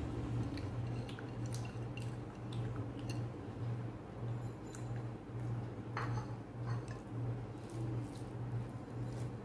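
Metal spoon scraping and clicking against ceramic plates as chicken curry is served onto rice, then fingers squishing rice and curry as they are mixed by hand. A low hum that pulses steadily runs underneath.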